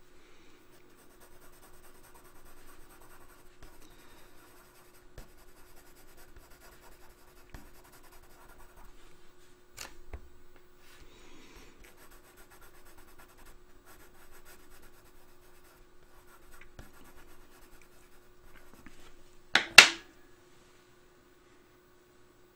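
Coloured pencil scratching lightly on drawing paper as cream colour is shaded in with small strokes. A sharp double knock sounds near the end, and then the scratching stops.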